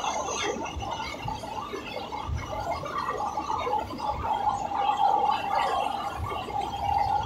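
Mumbai suburban local train running at speed, heard from its open doorway: a steady rumbling running noise with occasional low thuds. Over it is a steady high-pitched squeal that grows stronger about halfway through.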